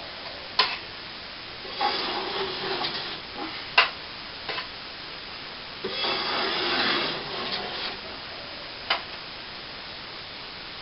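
A plastering tool scraping and working cornice cement, in two spells of scraping about two seconds in and again about six seconds in, with three sharp taps or knocks between them.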